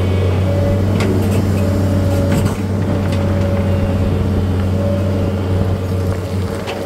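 An engine running steadily at a constant pitch, with a few short knocks or clatters over it, about a second in and again near the end.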